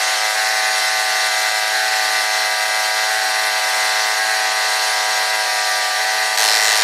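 Small 12-volt electric oil transfer pump running, pushing gear oil through a hose into a gearbox: a steady buzzing whine that gets a little louder near the end.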